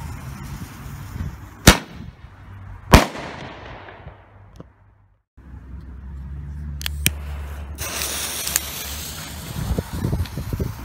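Trueno Shot single-shot firework going off: a burning fuse hissing, then two loud bangs a little over a second apart, their echo fading away. After a short gap, another fuse hisses with a couple of smaller cracks.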